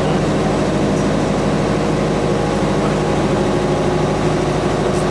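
Airport shuttle bus's diesel engine running steadily, a constant low drone heard from inside the passenger cabin.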